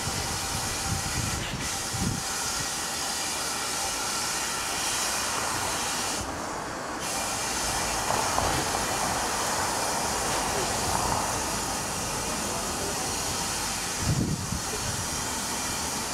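Steam locomotive hissing steam steadily, the hiss thinning briefly about six seconds in. A couple of low thumps come near the end.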